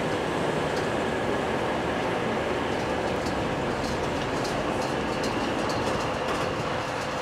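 An InterCity 125 (HST) diesel train, its engine noise a steady drone with a held whine, heard from a coach window alongside; faint clicks come and go in the middle.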